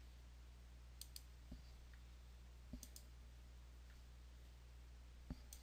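Computer mouse clicking a few times, some clicks in quick pairs, over near-silent room tone with a faint steady hum.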